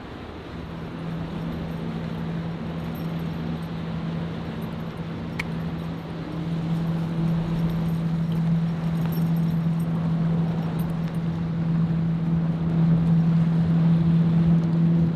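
A steady engine hum at a constant pitch, growing louder over the whole stretch as if drawing nearer, over a constant wash of wind and river noise.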